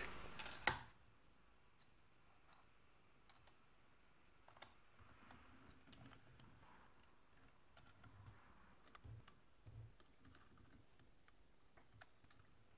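Faint, scattered small clicks and light taps of metal parts being handled: an aluminium adapter plate being fitted onto a mounting disc and its retaining screw knob turned.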